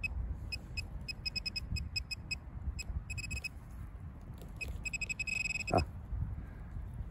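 Metal-detecting pinpointer beeping over a target: short high beeps, all at one pitch, come in clusters and then faster until they run together into a held tone about five seconds in, as it closes on the metal. A brief rising squeak follows just before six seconds, over a low rumble.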